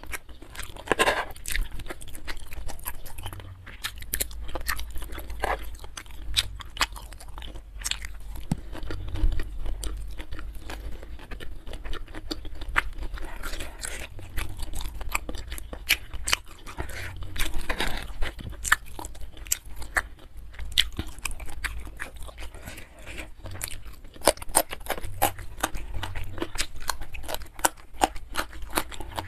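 Close-miked mouth sounds of a person eating fried kwetiau (flat rice noodles) with seafood: chewing with many irregular wet clicks and smacks.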